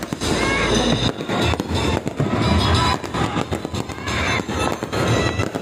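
Aerial fireworks exploding in a rapid, irregular string of bangs and crackles, with music playing along.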